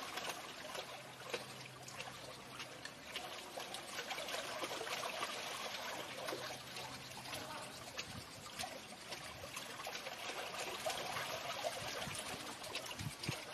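Water trickling and splashing at a small waterwheel in a stream, a steady running-water sound with many small splashes.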